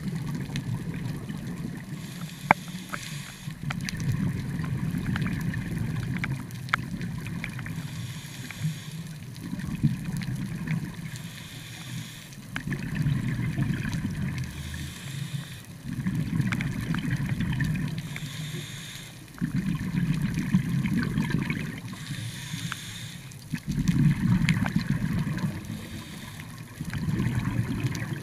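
Scuba diver breathing through a demand regulator underwater. A short hiss of inhalation alternates with a longer rumble of exhaled bubbles, in a steady cycle of about one breath every three to four seconds.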